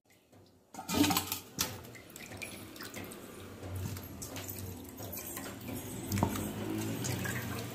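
Raw chicken drumsticks marinated in yogurt and turmeric handled in a stainless steel bowl: a sharp knock about a second in, then wet squelching and small clicks as a hand turns and rubs the sticky pieces.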